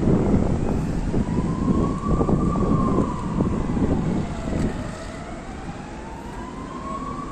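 Emergency vehicle siren wailing in a slow rise and fall, about one and a half sweeps. A low rumble, like wind on the microphone, sits under it and fades about two-thirds of the way through.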